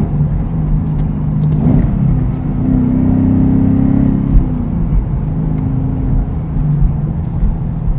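2017 Mustang GT's 5.0 Coyote V8 running through a Ford Performance (Borla S-Type-based) exhaust while driving, heard from inside the cabin. The exhaust note rises about two seconds in and runs louder through the middle under light throttle, then settles back to a steady cruise.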